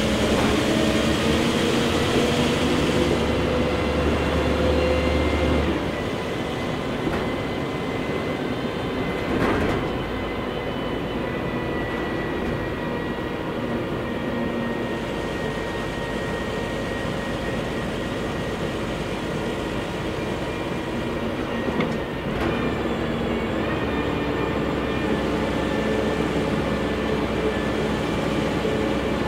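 Scania L113CRB bus's 11-litre six-cylinder turbo CNG engine, heard from inside the passenger cabin while the bus is under way. It pulls strongly at first, eases off about six seconds in, and comes back under load about three-quarters of the way through, with a couple of brief body knocks along the way.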